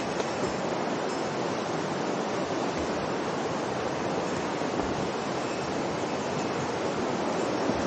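Steady rushing of a mountain river's flowing water.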